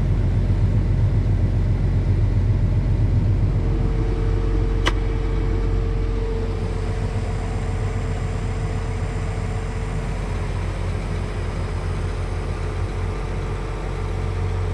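John Deere 8235R tractor's diesel engine running steadily under load, heard from inside the cab as a low drone. A faint steady tone runs through the middle, and there is one sharp click about five seconds in.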